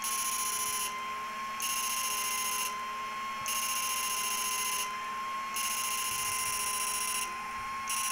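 A 600-watt fish-shocker inverter running on test, giving a steady high-pitched whine, with a higher hiss that cuts in and out about every second.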